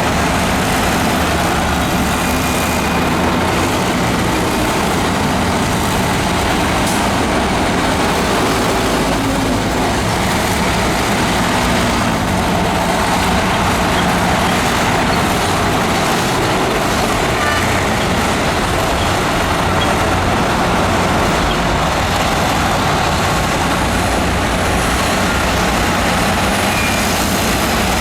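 Diesel engine of heavy earthmoving machinery running steadily, with a dense mechanical rumble and no pauses.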